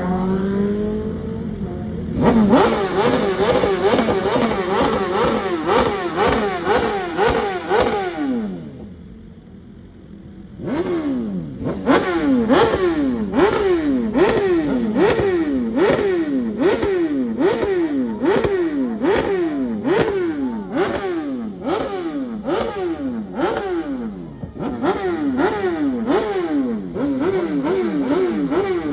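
Motorcycle engine being revved over and over, its pitch climbing and falling back in a regular rhythm about once a second. It dies down briefly near the middle before the revving resumes.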